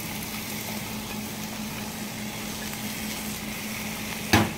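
Sliced potatoes, onion and leek sizzling softly in a metal pot, over a steady low hum. Near the end a sharp knock as the wooden spatula strikes the pot and stirring starts.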